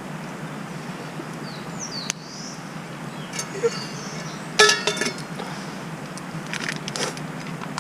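Metallic clinks with a ringing tone, the loudest about halfway through and a smaller cluster near the end, with a bird chirping briefly about two seconds in.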